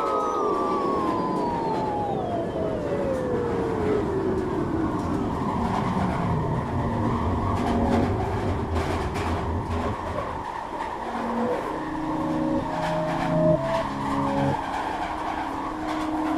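Electronic soundtrack: a layered synthesized tone slides steadily down in pitch over about seven seconds, followed by a rough noisy texture with a few clicks, then short held synth notes stepping between pitches.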